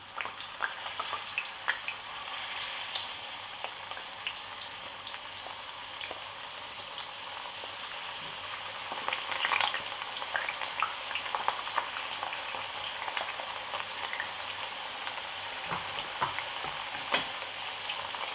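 Thin potato slices deep-frying in hot oil: a steady sizzle full of sharp crackles and pops. The sizzle jumps up at the start as the last slices go in, and gets busier around the middle and again near the end.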